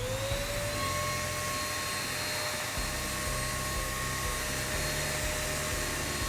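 Eureka Forbes Super Clean vacuum cleaner motor spinning up, its whine rising over the first half-second, then running steadily with a rush of suction air while vacuuming a sofa with the upholstery nozzle.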